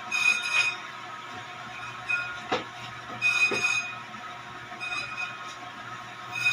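Brake drum lathe running with a steady hum while its cutting bit scrapes the inside of a brake drum, giving several short, high squealing screeches and a couple of clicks as the drum is resurfaced.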